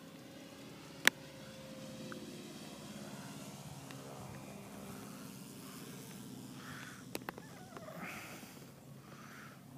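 Distant electric RC aerobatic plane, a Hacker A60 motor turning a 21x10 propeller, droning faintly, its pitch drifting as the throttle changes. A sharp click about a second in and a pair of smaller clicks later, with some windy rustle near the end.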